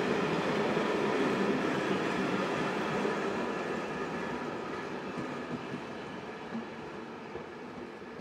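Passenger train hauled by a ČD class 371 electric locomotive rolling away along the track: a steady rumble of wheels on rails that fades gradually as it recedes.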